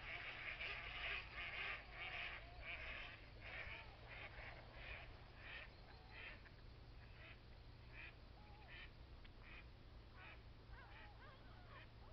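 A flock of wild geese calling in flight, many short honks overlapping at first, then thinning out and fading as the flock moves off.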